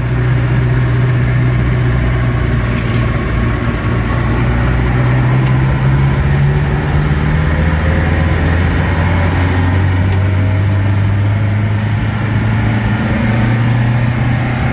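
The 1962 Mercedes L319D van's four-cylinder diesel engine running steadily while driving, its pitch rising and falling slightly, with road noise underneath.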